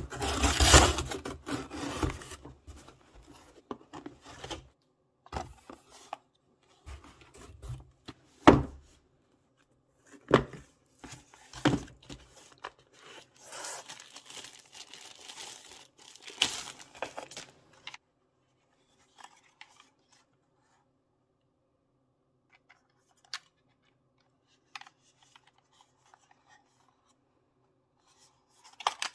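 Cardboard shipping box being torn open and handled, with tearing and rustling, then a thin plastic bag crinkling as a small folded drone is unwrapped. The handling noise stops about two-thirds of the way in, leaving a faint room hum and a few small clicks.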